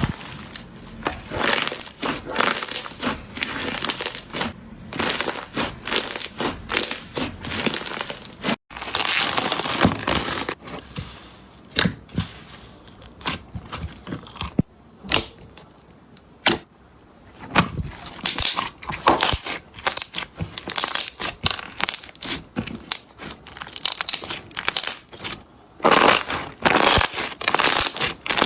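Slime being squeezed and kneaded by hand, giving a dense, irregular run of sticky clicks, pops and crackles.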